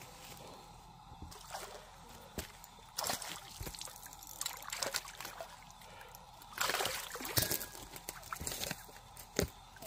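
Water sloshing and splashing in irregular bursts, with scattered knocks and clicks; the loudest splashing comes about three seconds in and again around seven seconds.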